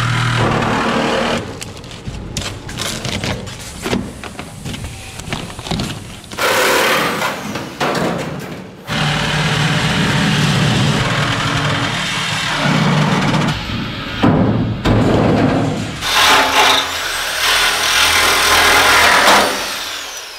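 Reciprocating saw cutting through the sheet-steel bed of a Chevy S10 pickup, running in several loud bursts with brief stops between cuts.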